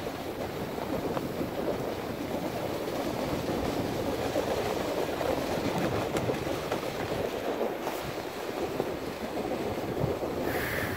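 Dog sled runners gliding and scraping steadily over a groomed, packed snow trail as a four-dog team pulls the sled. A brief higher-pitched sound comes in near the end.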